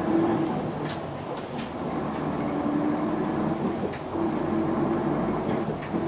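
Interior running sound of a 2006 Isuzu Erga PJ-LV234L1 non-step city bus under way: the diesel engine and drivetrain drone, with a whine whose pitch rises and falls as the bus changes speed, and a few faint rattles.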